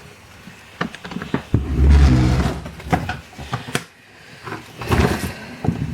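Plastic gecko tub being slid along a rack shelf: a rough, low scraping drag lasting about a second, with scattered plastic clicks and knocks as the tub is handled.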